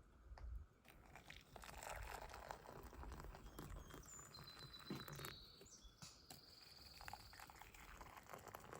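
Near silence with faint scattered clicks and crunches, and a thin high whistle near the middle that holds one pitch for about a second, breaks briefly, then holds again for about a second.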